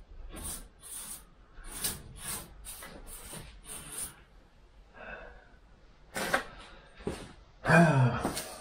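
Short scraping strokes by hand on the steel bodywork of a VW T2 Bay van below the rear side window, about two a second at first, then a few louder ones. Near the end comes a loud, short cry that falls in pitch.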